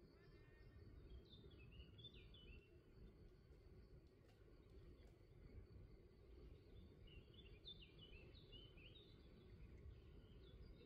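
Near silence: faint low outdoor background noise, with a small bird faintly singing short runs of chirping notes twice, about a second in and again around seven seconds in.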